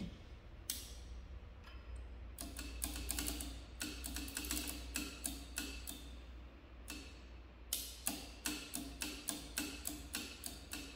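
Light, regular clicking, about four ticks a second, in two runs, as an old hit-and-miss engine's flywheel is rolled over by hand to check for spark.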